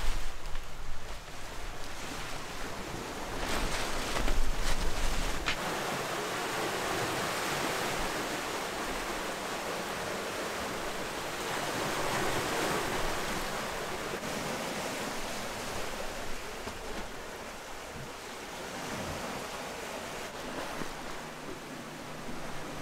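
Water rushing and splashing along the hull of a catamaran sailing downwind, with wind buffeting the microphone in gusts, strongest about four seconds in.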